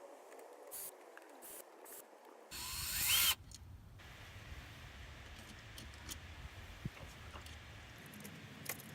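Drill turning a T25 Torx bit in a short run of under a second, about three seconds in, its pitch rising as it spins up, backing out a coil pack mounting screw. Faint clicks and taps of the bit and screw are heard around it.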